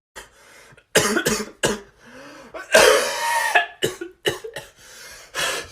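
A person coughing over and over: three quick coughs about a second in, a longer, harsher cough near the middle, then a string of shorter coughs.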